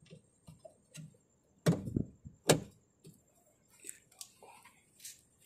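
Clicks and knocks from hands working on the window regulator's glass clamp inside an Audi A4 B8 rear door, with two louder knocks under a second apart about two seconds in, then light rustling and scraping.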